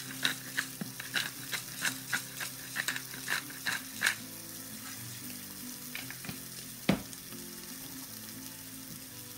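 Smoked pork slices frying in olive oil with sliced garlic in a frying pan over low heat: a steady sizzle with sharp crackling pops, close together for the first four seconds, then sparser, with one loud pop about seven seconds in.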